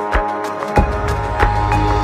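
Background music with a steady beat; a heavier bass comes in a little under a second in.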